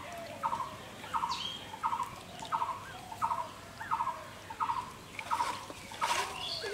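A bird calling over and over, one short phrase about every two-thirds of a second: a quick rising-and-falling note, then a rapid run of clipped pulses. Near the end there are wet squelches as onions and spices are mixed by hand.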